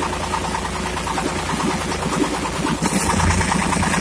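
Single-cylinder Dongfeng diesel engine running steadily with a rapid, even knocking beat. A hiss joins in about three seconds in.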